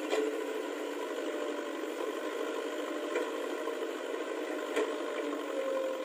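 JCB 3DX backhoe loader's diesel engine running steadily under hydraulic load as the rear bucket digs into soil, with a few short knocks about at the start, around three seconds in and near five seconds.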